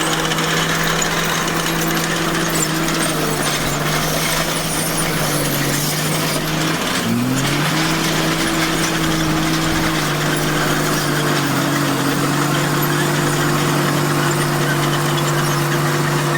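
Komatsu bulldozer's diesel engine running steadily, its pitch dipping briefly about halfway through and then climbing back up as the engine takes load.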